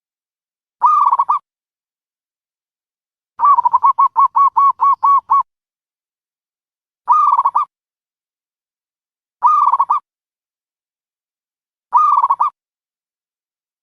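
Dove calling: a short cooing call repeated every two to three seconds, with a fast run of about nine clipped notes about three seconds in.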